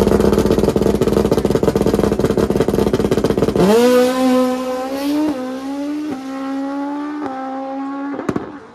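Suzuki Hayabusa drag bike's inline-four engine held at high revs on the start line, then launching a little under four seconds in. The pitch climbs and drops back with four quick upshifts as the bike pulls away down the strip.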